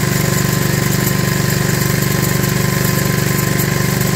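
79cc 3 hp Predator single-cylinder four-stroke engine running steadily, belt-driving a 75 A 12 V alternator that is charging a battery.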